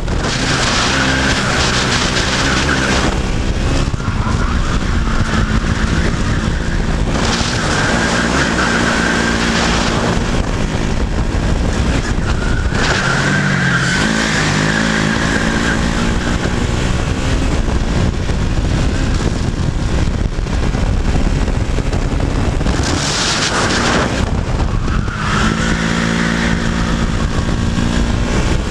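Racing kart's two-stroke engine revving hard at race speed, its note dropping and building again several times as the kart slows for corners and accelerates out.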